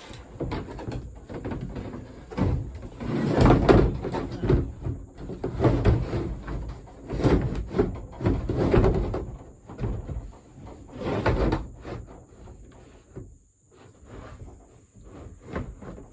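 Plastic Rubbermaid shed panels and roof pieces being handled and fitted together: irregular knocks, bumps and scrapes of hollow plastic, busiest in the middle and thinning out near the end.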